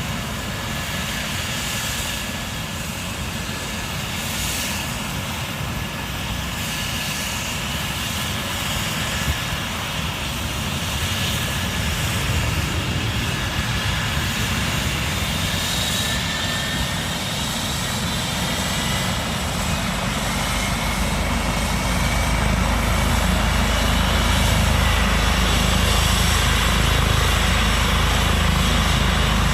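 Air ambulance helicopter running: a steady turbine whine over rotor and engine noise. It grows louder with a deeper rumble in the last several seconds.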